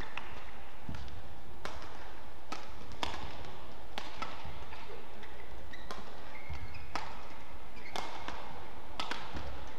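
Badminton rally: rackets striking the shuttlecock with sharp cracks about once a second, with short squeaks of court shoes between the shots.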